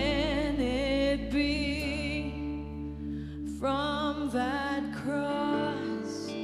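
Live worship music: a woman sings lead into a microphone in long phrases with vibrato, over the band's sustained chords. The phrases break off a few times with short gaps.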